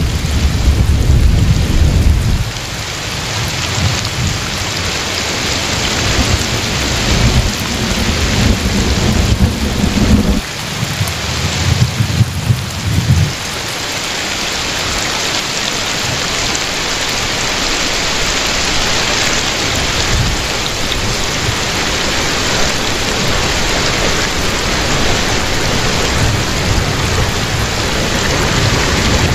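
Heavy rain falling steadily, with low rolling rumbles of thunder at the start and again about a third of the way in, then the downpour alone, slowly growing louder.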